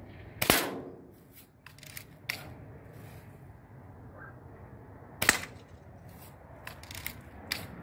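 Daisy Red Ryder lever-action BB gun fired twice, about five seconds apart, each shot a sharp snap with a short ring. Lighter clicks come between and after the shots, as from the lever being worked to cock the gun.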